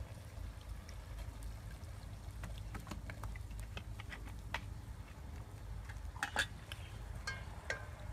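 A metal ladle clinking against a stainless steel cooking pot as the food is stirred, with a few sharp ringing clinks in the last two seconds after scattered light clicks, over a steady low rumble.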